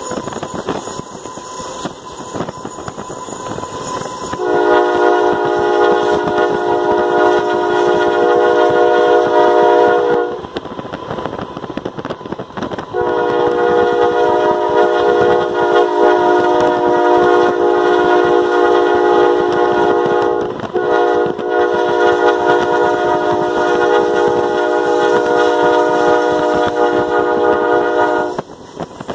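Diesel locomotive air horn blown in three long blasts, starting about four seconds in. The second and third blasts are split by only a brief break.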